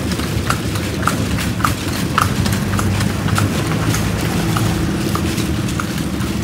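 A vehicle's engine running steadily during a ride, with a sharp click repeating regularly about twice a second over it.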